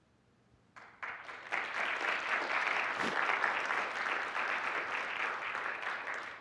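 Audience applauding: a few scattered claps about a second in, building quickly to steady applause that dies away near the end.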